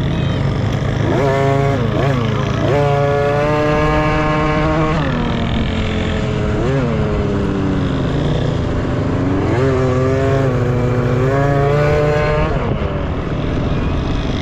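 Small 50cc two-stroke dirt bike engines revving hard, climbing in pitch and holding several times, then dropping as the throttle is eased, over a steady low hum.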